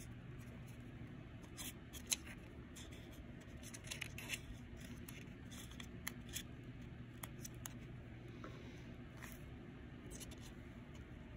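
Faint, scattered rustles and small clicks of paper being handled, as the pages of a book of vintage paper are leafed through, over a steady low hum.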